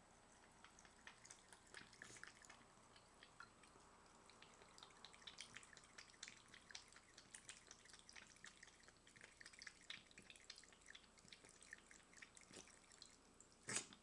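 A cat lapping water from a thin trickle running from a sink faucet: faint, quick wet clicks, several a second and irregular, with one louder click near the end.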